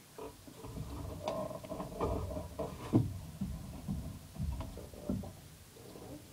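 Pencil drawing on paper on a desk: irregular scratching and rubbing strokes with a few knocks against the desk, the sharpest about three seconds in.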